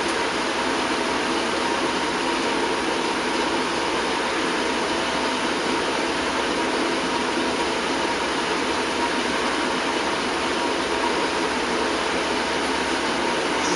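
Steady, machine-like background noise at an even level, with a faint constant tone running through it.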